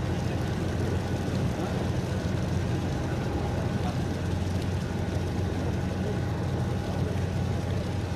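A passenger ferry's engines droning steadily, with a rushing of wind and water heard on board.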